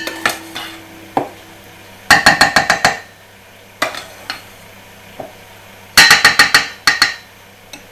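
Wire whisk rapped quickly against the rim of a stainless steel mixing bowl, knocking whipped egg white off into the batter. It comes as two quick runs of about eight ringing metal clinks each, about four seconds apart, with a few single clinks between.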